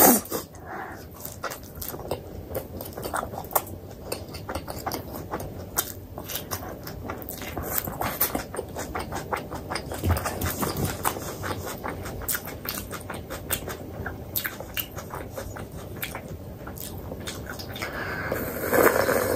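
Close-miked chewing of paratha: a steady run of quick wet mouth clicks and smacks, with a louder burst near the end.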